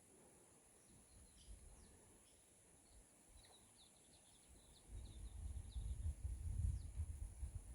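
Faint bird chirps in a quiet natural setting, including a quick run of short notes in the middle. About five seconds in, a louder low rumble starts up, like wind or handling on the microphone, and covers the rest.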